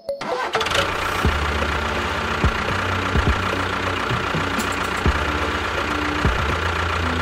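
Tractor engine running steadily with a low chugging hum and scattered knocks, cutting in at the very start.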